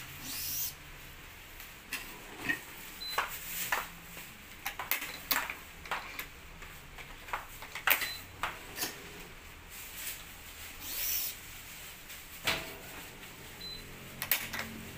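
BG65 Titanium badminton string being pulled and woven through a racket on a stringing machine: short swishes of string drawn through the frame and across the main strings, mixed with scattered clicks and knocks from the clamps and frame.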